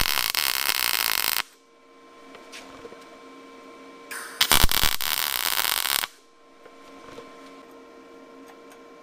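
MIG welder laying two tack welds, each a crackling arc about two seconds long: the first stops about a second and a half in, the second runs from about four to six seconds in.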